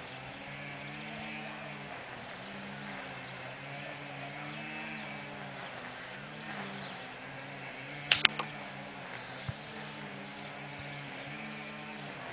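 A single shot from a Diana 75 spring-piston air rifle about eight seconds in: a sharp double crack, followed by a faint click about a second later. A low, wavering hum runs underneath.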